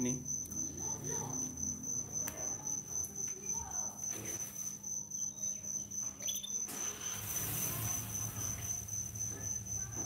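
An insect, cricket-like, trilling steadily: a fast, even, high-pitched pulse that does not change.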